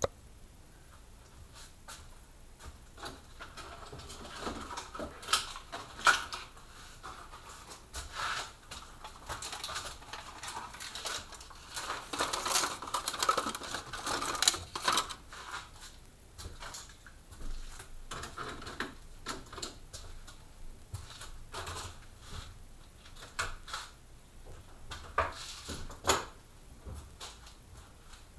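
Irregular light clicks, taps and knocks from objects being handled, some louder and bunched together about halfway through.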